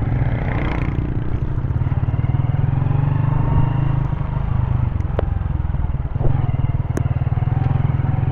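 Honda motorcycle engine running steadily at low speed while riding over a dirt track, with a few short sharp clicks.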